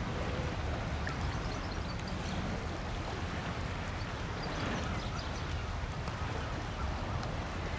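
Steady low engine hum of a small general cargo ship under way, over a constant wash of wind and water noise, with faint high bird chirps scattered through it.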